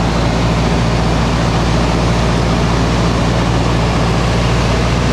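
Piper Super Cub's piston engine and propeller running steadily in flight, heard from inside the cabin with a constant rush of airflow.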